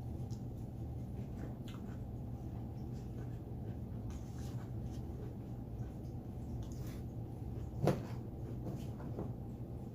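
Quiet eating and food-handling sounds: faint scattered clicks and rustles over a steady low hum, with one sharp knock about eight seconds in.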